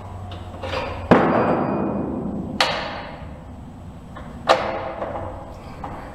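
Front axle of a 2018 Scout Bobber being knocked through the wheel hub and fork legs: three hard strikes, each ringing out briefly, the first, about a second in, the loudest.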